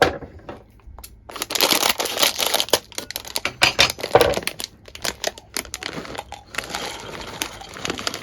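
Dry crinkling and crunching rustle with many sharp clicks, starting about a second in and going on in irregular spurts.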